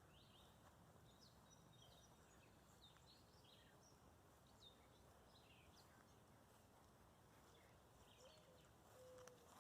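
Near silence outdoors, with faint scattered chirps of small songbirds in the background.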